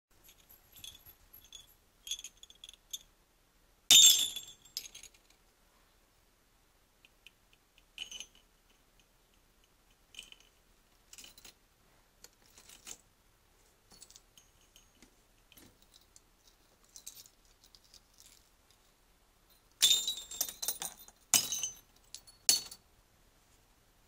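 Small brass jingle bells jingling on and off as a budgerigar plays with them, knocking them about. Short light jingles come through the middle, with a loud one about four seconds in and a run of several loud jingles near the end.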